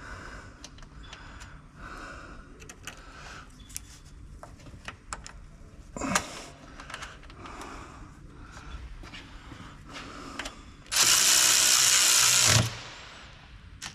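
Scattered light clicks and knocks of tools and fittings, then a loud burst of about a second and a half from a power tool about eleven seconds in, likely a cordless ratchet or driver running a fastener home while the battery's ground strap is fitted.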